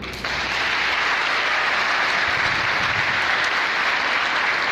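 Large audience clapping, breaking out suddenly and keeping up steadily.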